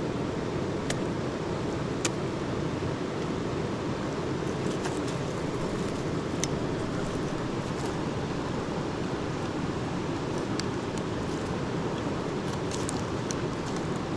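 Steady rushing of a river, with a few sharp clicks scattered through it.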